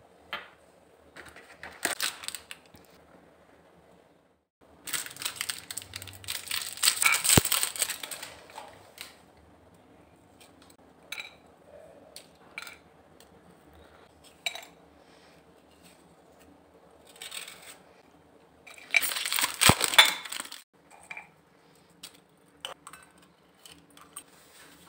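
Plastic Oreo biscuit packets crinkling and rustling in a few bursts, the longest about five seconds in and again around twenty seconds. Scattered small clicks of biscuits and a knife against ceramic plates as the cream is twisted and scraped off the biscuits.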